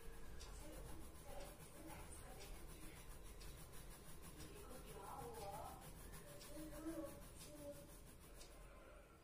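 Colored pencil shading on paper: faint, repeated scratching of the pencil lead stroking back and forth.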